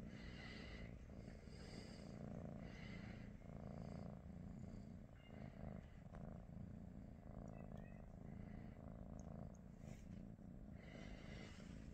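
British Shorthair cat purring: a faint, steady low purr that swells and eases with each breath, about once a second.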